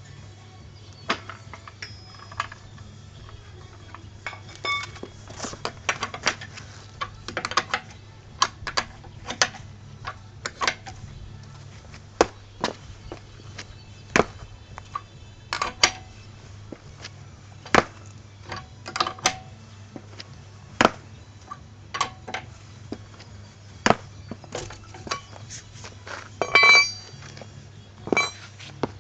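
Irregular metallic clinks and knocks of hand tools and metal parts being handled during a car tyre change, about one or two a second, a few ringing briefly; a steady low hum underneath.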